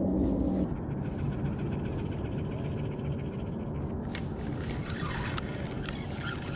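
Spinning reel being cranked, a fine rapid ticking, then louder rustling and clicking handling noise from about four seconds in as a hooked crappie is reeled in, over a low rumble.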